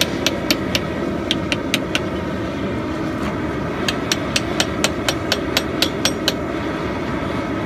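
Hand hammer striking a chisel to cut teeth into a piece of rasp clamped in a leg vise: quick, sharp metallic taps, about four a second, in two runs with a pause of about two seconds between. A steady low rushing noise lies underneath.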